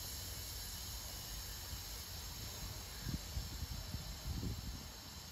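Steady hiss of falling rain over a low rumble, with a few soft low thumps about three to four and a half seconds in.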